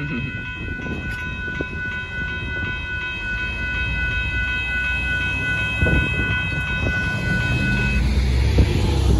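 Railroad crossing warning bells ringing steadily while the crossing gates rise after the train has cleared, cutting off about eight seconds in. Road traffic rumbles over the crossing near the end.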